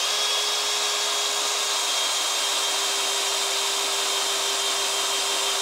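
A Bosch 12-volt cordless drill running at its slow speed setting, drilling a 5 mm hole in an oiled steel block. It gives a steady motor whine with a thin high tone above it, under the hiss of the bit cutting.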